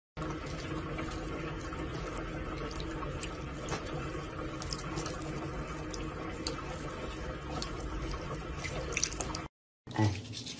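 Water running from a tap into a bathroom sink, a steady stream with faint drips and splashes; it cuts off abruptly about a second before the end.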